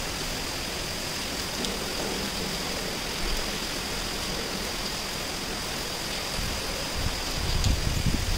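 Heavy cyclone rain pouring steadily, a constant hiss. Near the end, wind starts to rumble on the microphone.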